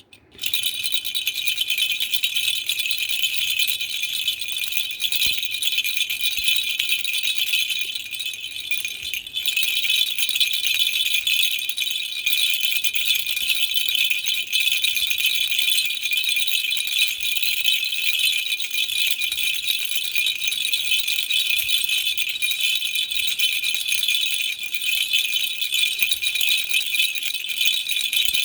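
Baby rattle shaken without a break: a dense, high-pitched clatter that starts about half a second in and dips briefly about a third of the way through.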